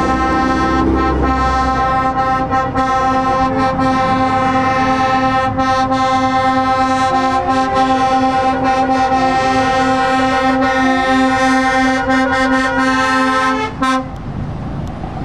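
Truck air horn held down in one long, steady note for about fourteen seconds, cutting off abruptly near the end, over the noise of passing lorries.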